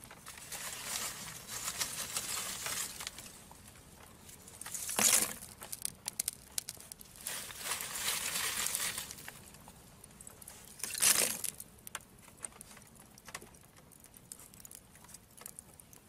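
Wood embers crackling in a clay fireplace, with scattered sharp pops. Two longer hissing rushes of a few seconds each come and go, and two short, louder bursts come near the middle and about two-thirds of the way through.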